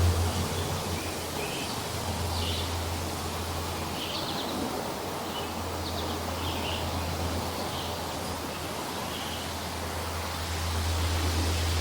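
Morning forest ambience: small birds giving short, scattered chirps over a steady hiss. A low rumble eases at the start and builds again near the end.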